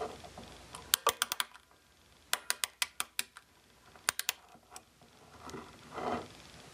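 Computer keyboard being typed on in short runs of sharp keystroke clicks: about five keystrokes around a second in, six more starting about two and a half seconds in, and a few more around four seconds. A soft noise swells near the end.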